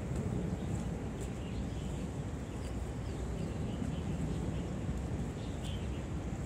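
Outdoor street ambience: a steady low rumble with faint high chirps now and then and a few light clicks.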